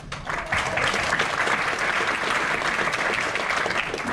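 Audience applauding, a dense patter of many hands that swells up just after the start and begins to fade near the end.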